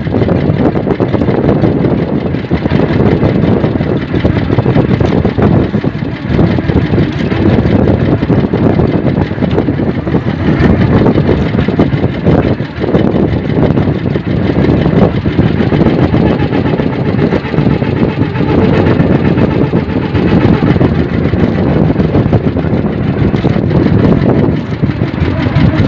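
Motorized outrigger boat's engine running steadily at close range, a loud unbroken drone.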